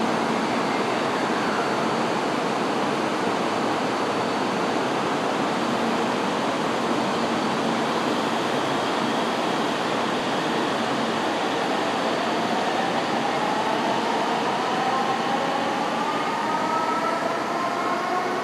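Kyushu Shinkansen 800 series train pulling out of the station: a steady rushing noise, joined about twelve seconds in by a whine from its traction motors that rises in pitch as the train gathers speed.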